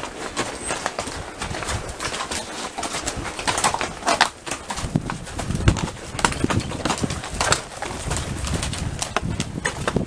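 Horses' hooves clopping and knocking on a rocky trail as several horses walk, in an irregular run of strikes with a few sharper clacks on stone.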